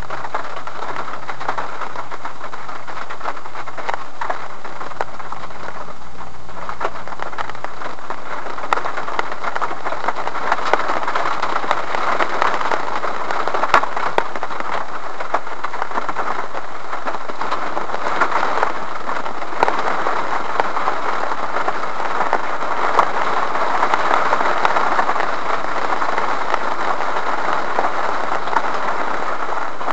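Rain falling on a car's windshield and body, heard from inside the cabin: a steady hiss with many sharp raindrop ticks, growing heavier about ten seconds in. A low steady hum sits underneath for the first several seconds, then fades.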